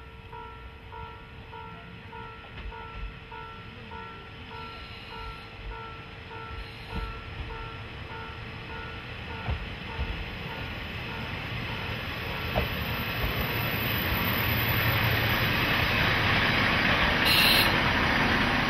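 KiHa 40 diesel railcar approaching and running into the platform, its engine and wheel noise growing steadily louder until the cars pass close by near the end. Over the first half a warning bell dings about twice a second, then stops.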